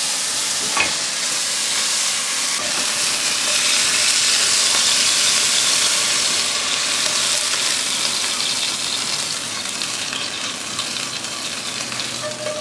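Steak sizzling in a hot frying pan: a steady, loud hiss, oiled meat searing in a dry pan, with one light click about a second in.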